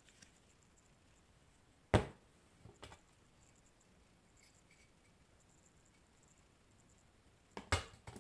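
Handling knocks of objects set down on a hard table: a sharp knock about two seconds in as the plastic airsoft pistol is put down, a lighter knock just after, and a quick double knock near the end as the glass wine bottle is set on a plastic tray.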